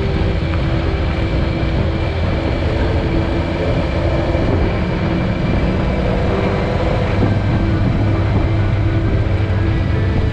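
Motorcycle engine running at a steady speed on the move, heard from the bike itself; the camera bike is a BMW S1000XR with an inline-four engine.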